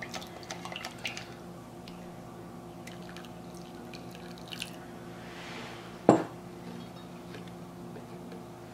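Salt solution trickling from a measuring cup into a glass bowl of goat milk liquid soap, the step that thickens the soap, with faint ticks of glass and utensils. About six seconds in there is a single sharp clink against the glass bowl.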